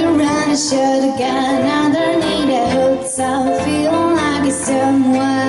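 A small live pop band playing: a young girl singing lead into a microphone over grand piano, electric guitar and electric bass guitar.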